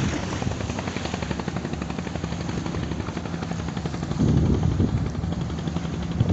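Boat engine running steadily with a rapid low throbbing, and wind gusting on the microphone about four seconds in.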